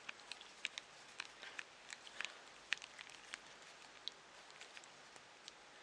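Faint, irregular small clicks and ticks of a bottle cage clamp bracket being handled while its screw is turned in by hand.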